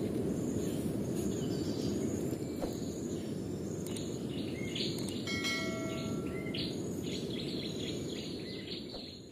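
Steady low outdoor background noise, with a bell-like notification chime about five seconds in and chirping, like small birds, through the second half.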